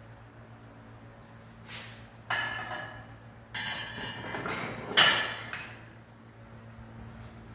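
Steel square-tube table frame being set into a steel welding fixture jig: three metallic clanks that ring on after each, about two, three and a half and five seconds in, the last the loudest.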